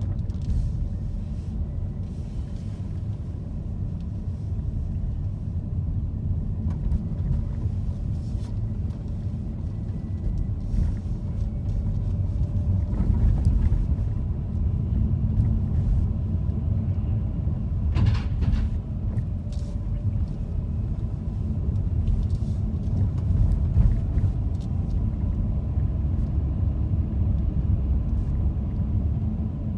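Steady low rumble of a car on the move, with engine and tyre noise heard from inside the cabin. A single short knock comes about eighteen seconds in.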